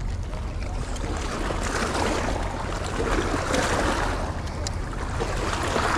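Small waves washing against shoreline rocks over a steady low wind rumble on the microphone; the hiss of the water swells about two seconds in, again around three to four seconds, and near the end.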